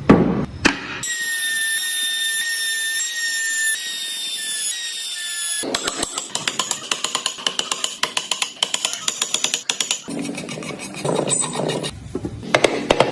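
Woodworking power tools working wood in short cuts: a few knocks, then a small power tool's steady high whine for a few seconds, then a rapid even ticking of about five strikes a second, and more knocks near the end.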